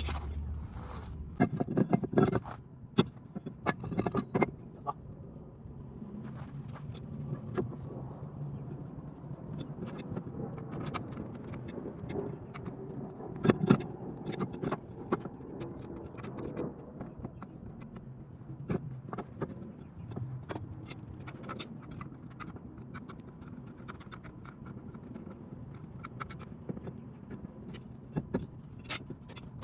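Metal tools and brake parts clinking, scraping and knocking at irregular moments during hand work on a car's disc brake, with a few louder knocks about two seconds in and near the middle.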